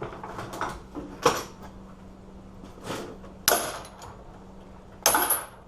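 Metal clanks and rattles of a heavy padlock on a steel chain. There are three loud clanks, about a second in, midway through and near the end, the later two ringing briefly.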